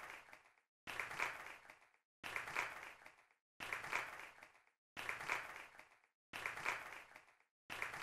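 Audience applause, chopped into short repeating pieces about every second and a half, each starting abruptly, fading, and broken by a brief silence.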